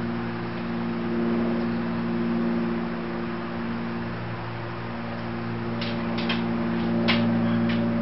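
A steady low mechanical hum made of several held tones over a faint hiss, with a few short, sharp high ticks near the end.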